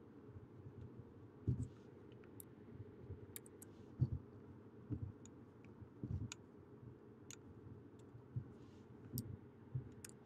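Scattered clicks from working a computer's mouse and keyboard, about a dozen in ten seconds, some of them duller and louder, over a steady low hum.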